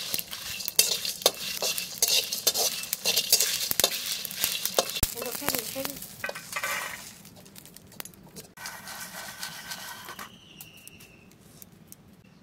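Metal spatula scraping and stirring whole spices dry-roasting in a metal kadai: rapid rattling clicks of seeds and chillies against the pan over a light sizzle. The stirring dies away about seven seconds in, leaving a quieter background.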